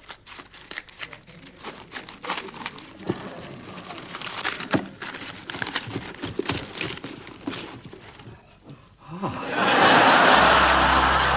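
Crinkling and rustling of handled material, with many small clicks and crackles. About nine seconds in, a sudden loud, noisy burst takes over and is the loudest sound.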